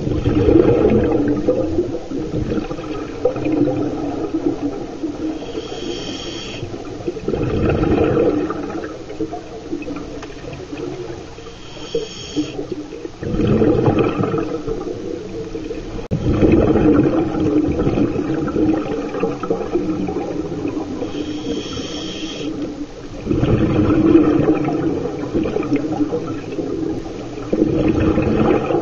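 Scuba regulator breathing underwater: a short hissing inhale through the regulator, then a rumbling burst of exhaled bubbles, repeating slowly several times.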